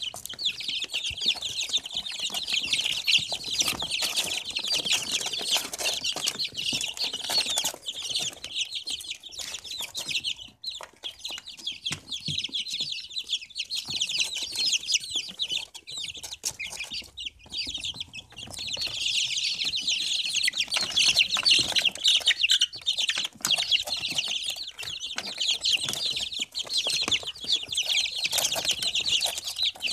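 A crowded brood of young chicks peeping all together: a dense chorus of short, high cheeps that thins out for a while in the middle and swells again in the second half.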